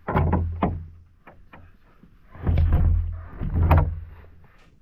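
A heavy pack being hauled out of a canoe: bumps and scraping against the canoe hull, with the hull booming low, in two bouts, one at the start and a longer one from about halfway, with a few sharp knocks between.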